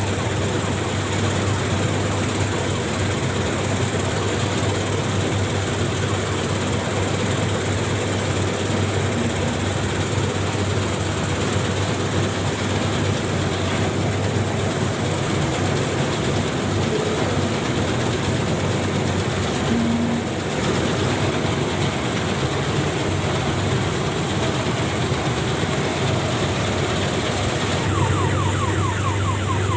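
Combine harvester running steadily under load, a continuous low engine hum with machinery noise over it.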